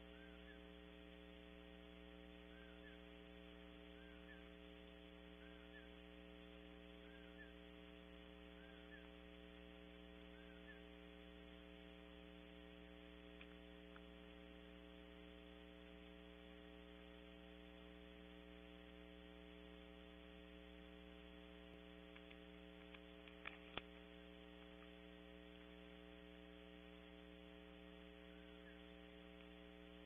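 Steady electrical mains hum at a very low level, with faint short chirps every second or two in the first part and a few faint clicks about 23 seconds in.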